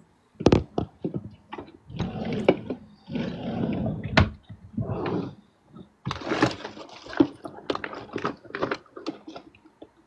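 Things being moved around while someone hunts for a book: sharp knocks about half a second and about four seconds in, rustling and shuffling in between, then a quick run of clicks and taps.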